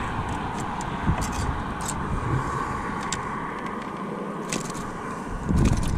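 Steady hum of road traffic, with scattered small clicks and handling noises, and a low rumble near the end.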